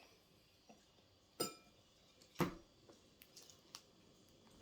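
Homemade slime being stretched and worked in the hands, giving a few short sticky pops and clicks: two clearer ones about a second and a half and two and a half seconds in, then a few fainter ticks.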